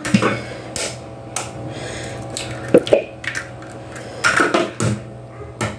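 Eggs being cracked on the edge of a mixing bowl and dropped into oil: several sharp cracks and taps of shell against the bowl, spread out over a few seconds.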